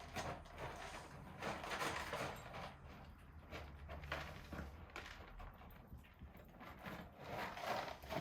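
Kittens moving about: faint, irregular scratching and rustling with small clicks.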